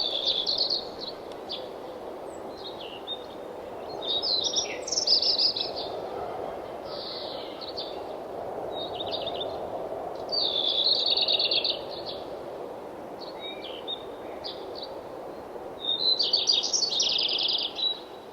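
Songbirds singing in short bursts of rapid chirps and trills, repeated every few seconds, over a steady rushing background of wind.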